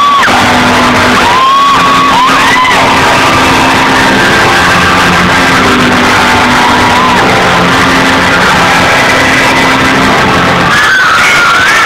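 Loud rock concert music with steady held bass notes, as the crowd screams and cheers over it; the screaming grows louder near the end.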